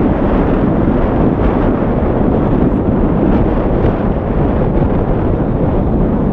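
Wind buffeting the microphone: a loud, steady noise that covers whatever else is on the field.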